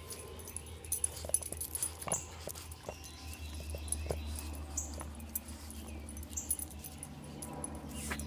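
A dog scratching its rear on a concrete driveway: scattered light clicks and scuffs of its claws and body against the concrete, over a low steady hum.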